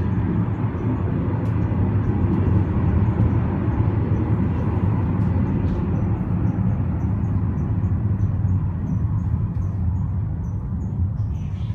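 Funicular car running on its rails through a tunnel, heard from inside the car: a steady low rumble that eases off near the end as it nears the station.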